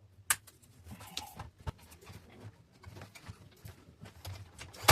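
Workshop handling sounds: a sharp click about a third of a second in, then scattered light knocks and taps, and another sharp click near the end.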